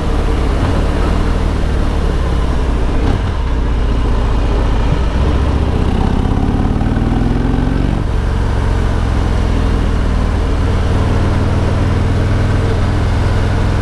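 Harley-Davidson Road King Special's Milwaukee-Eight V-twin engine running on the move, with wind noise over it. About five and a half seconds in the engine revs up with a rising pitch, then falls back sharply about eight seconds in.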